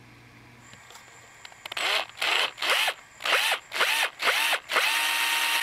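Cordless drill boring a screw hole through a hardwood transition strip. It starts in a series of short trigger pulses, the motor whine rising and falling with each, then runs steadily near the end.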